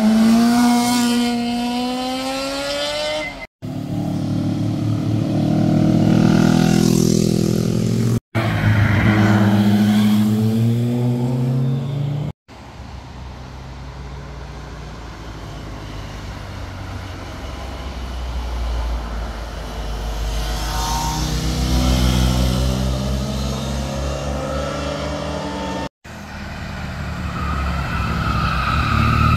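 A run of vehicle pass-bys on a winding road, cut together as short clips that each break off abruptly. It opens with a sport motorcycle's engine climbing in pitch as it accelerates out of a bend. Cars follow, the last a black Audi estate accelerating past with a rising engine note.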